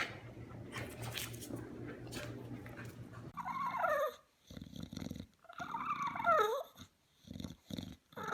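A puppy whining: two long wavering whines that rise and fall in pitch, one about three and a half seconds in and another about six seconds in. Before them there is a low steady hum with small clicks.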